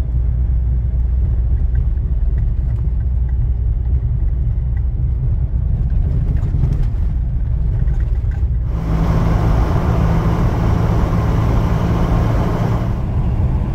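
Car driving on a dirt road, heard from inside the cabin: a steady low rumble of engine and tyres on the unsealed surface. About nine seconds in, a louder hiss joins with a steady hum, then eases near the end.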